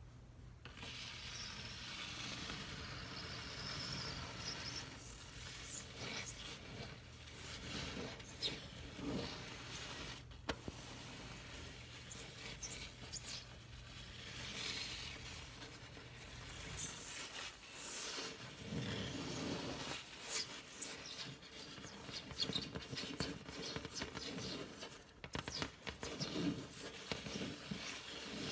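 A long fingernail scraping and rubbing over a stovetop, in irregular short screeching scrapes.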